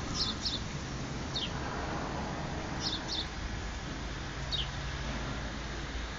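A bird giving short, high chirps that fall in pitch, about six of them, some in quick pairs, over a steady low background rumble.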